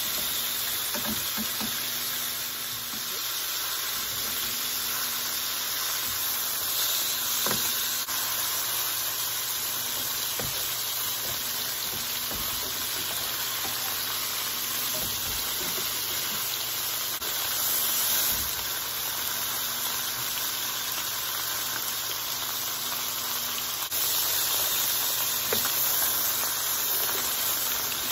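Chicken leg quarters searing skin-down in hot bacon grease in a skillet: a steady frying sizzle with scattered small pops.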